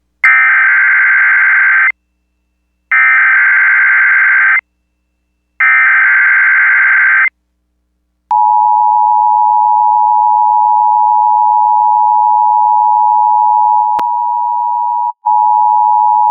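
Emergency Alert System SAME header: three identical bursts of rapid warbling data tones, each under two seconds with about a second of silence between, encoding a Tornado Watch. Then the steady NOAA Weather Radio 1050 Hz alert tone, one pitch held for about eight seconds with a brief break near the end.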